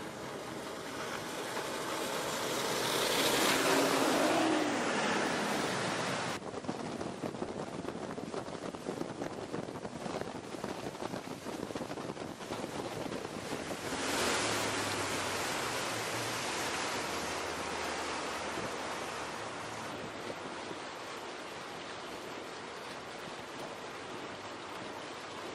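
Outboard-powered patrol boats passing at speed: the outboard motors run under a rush of hull wash and spray. The sound swells loudest about three to four seconds in, with the engine pitch falling as the boat goes by, and swells again about fourteen seconds in. The later boat is a Midnight Express 39-foot patrol boat with four Mercury 250 outboard motors.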